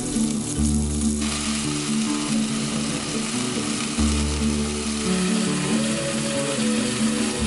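Cubes of seasoned stew beef sizzling as they brown in hot oil in a cast-iron pot, the hiss growing stronger about a second in. Acoustic background music with no singing plays underneath.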